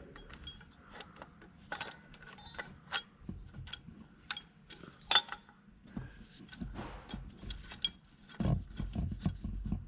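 Irregular metallic clicks and clinks of small metal parts being handled: a tractor alternator, its tightener bolt and spacer washers being lined up by hand. A duller low rumble comes in near the end.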